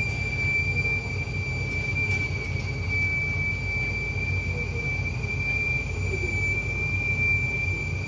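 Steady, high-pitched whistle of a Jamaican peanut vendor's steam-roasting cart, held unbroken, over a low rumble of a car engine running.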